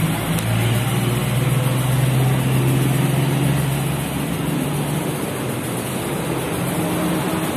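An engine running at a steady idle with a low hum that eases about halfway through, over a steady rushing background noise.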